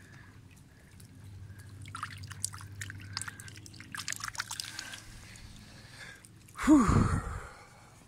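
Water splashing and dripping around a catfish held by the jaw in the river shallows, with many small drips and splashes, then a louder gurgling splash with a falling pitch about seven seconds in.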